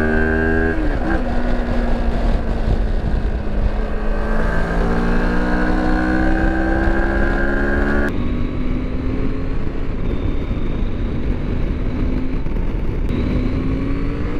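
Moto Morini X-Cape 649 parallel-twin engine revved hard under acceleration, as this low-torque engine needs driving toward redline to get moving: a gear change about a second in, then the pitch climbs steadily for several seconds, over heavy wind noise. About eight seconds in it cuts to another motorcycle engine running at steadier revs, rising again near the end.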